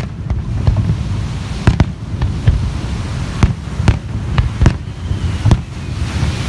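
Aerial firework shells bursting in quick succession: about ten sharp booms, one every half second to a second, over a steady low rumble.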